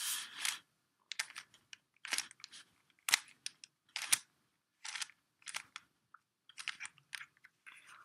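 Layers of a plastic Rubik's cube being turned by hand: a quick clicking scrape with each turn, about a dozen turns in an uneven run as a solving move sequence is carried out.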